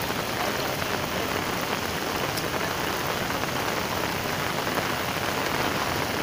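Heavy rain falling steadily on floodwater: an even, unbroken hiss.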